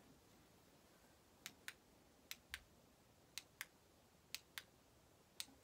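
Faint sharp clicks in quick pairs, a pair about once a second, over near silence.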